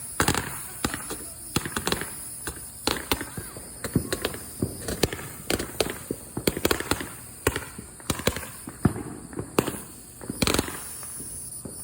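Consumer fireworks going off: a quick, irregular run of sharp cracks and pops.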